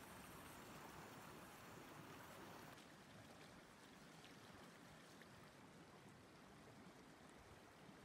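Faint rushing of a shallow river flowing around rocks. About three seconds in the sound drops to a quieter, steady hiss.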